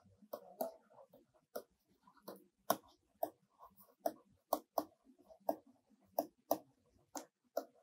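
Stylus tapping and scraping on a pen tablet while writing by hand: a string of light, irregular clicks, about two a second.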